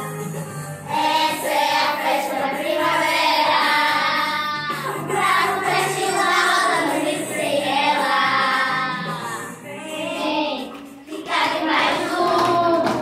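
A group of children singing a song in unison over backing music, phrase by phrase with short breaths between lines.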